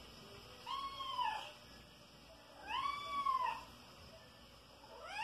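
A five-month-old kitten meowing up at its owner for attention: two meows about two seconds apart, each rising then falling in pitch, and a third starting near the end.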